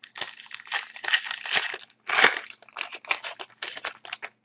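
A hockey card pack's wrapper crinkling and tearing as it is opened, with the loudest rip about two seconds in, then lighter crackling rustles.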